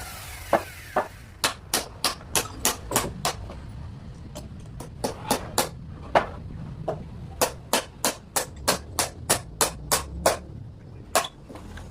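Hammering on wood: sharp knocks in quick runs of about three strikes a second, with short pauses between runs.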